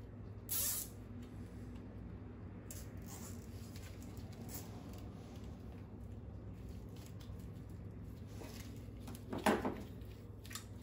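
Nylon zip ties being fastened and trimmed on a coolant hose of an outboard engine: light handling noise, with a short sharp high-pitched sound about half a second in and a louder short sharp sound near the end.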